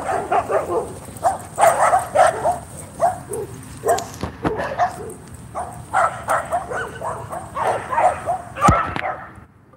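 Dogs barking and yipping in quick, short bursts while they play. There is a single knock near the end.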